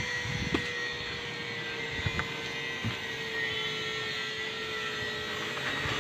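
A steady engine drone at one pitch that sinks slightly over the seconds, with a few light knocks.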